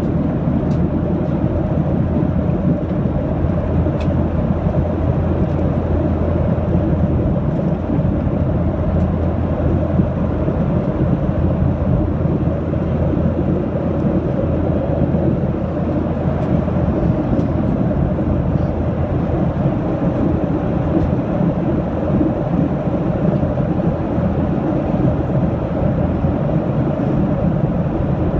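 Steady in-flight cabin drone of a Boeing 737-700, its CFM56-7B engines and the airflow over the fuselage heard from a window seat over the wing. The noise is low and even, with no changes in pitch or level.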